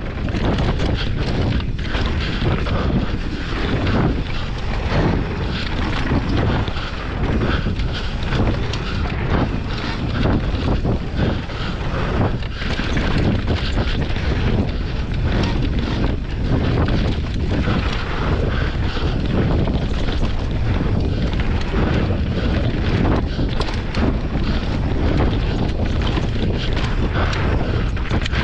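Mountain bike descending a dry dirt trail at speed: wind buffeting the camera microphone over the rush of knobbly tyres on dirt, with frequent rattling knocks from the bike over roots and bumps.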